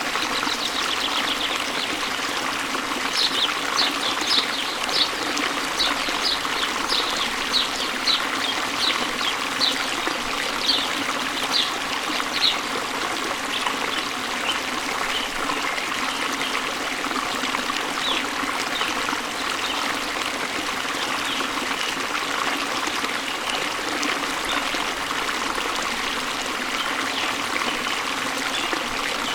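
Waterfall and stream water running steadily. A bird gives a run of short high chirps, about two a second, from about three seconds in to about twelve seconds in, with fainter chirps after that.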